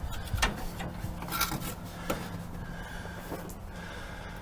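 A few scattered knocks and scrapes as the old, crusty brake master cylinder is handled after being pulled off its mounting studs, over a steady low hum.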